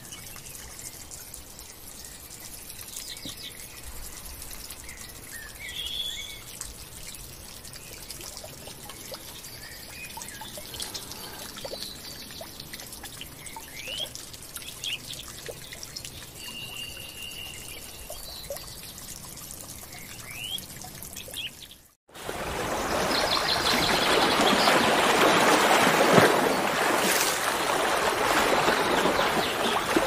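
Water trickling and splashing from a stone spout into a pond, with birds chirping now and then. About 22 seconds in, the sound cuts to the much louder, steady rush of a waterfall.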